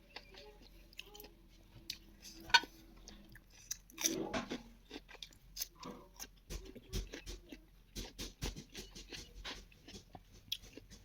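A person chewing beef close to the microphone: irregular wet smacks and small clicks of the mouth, with a sharp click about two and a half seconds in.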